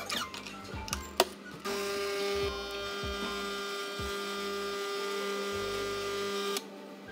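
Capsule coffee machine's pump running with a steady buzzing hum for about five seconds while it dispenses a drink into the glass, then cutting off suddenly. A few light clicks and a knock come just before it starts.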